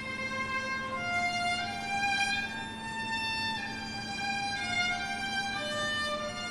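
Solo violin playing a slow melody of long held notes that step from one pitch to the next.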